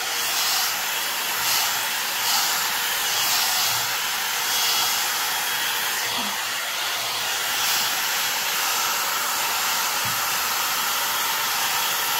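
Electric hot-air brush (a 3-in-1 drying, straightening and styling brush) blowing steadily with a thin steady hum under the rush of air. The rush swells slightly now and then as the brush is worked through the hair.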